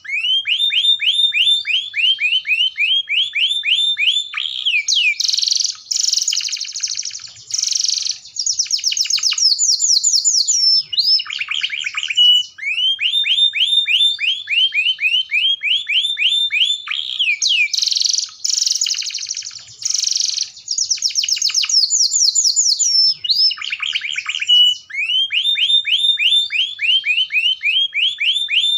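Domestic canary singing continuously in rapid trills of quick downward-sweeping notes, switching between lower and higher trills; the same song sequence comes round again about every twelve seconds.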